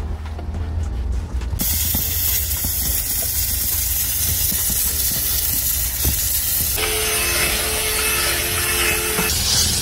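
Handheld steam cleaner hissing as it blasts steam onto a microfiber towel and interior trim, starting about a second and a half in. Near the end, for a couple of seconds, a cordless drill with a scrub brush whines as it scrubs the carpet.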